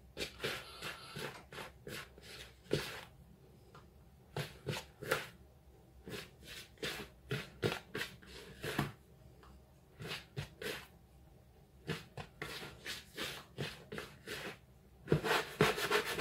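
Hands rubbing margarine into self-raising flour in a plastic mixing bowl, working it to a fine crumb for scone dough: soft irregular rustling and scraping, a few strokes a second, louder and busier near the end.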